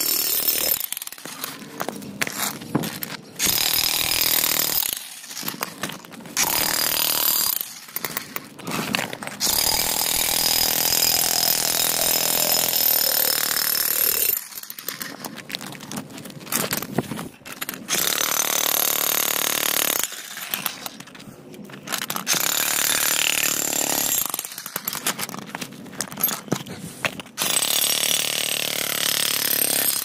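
Corded electric jackhammer breaking up old concrete. It runs in bursts of one to five seconds with short stops between, a high whine over the hammering.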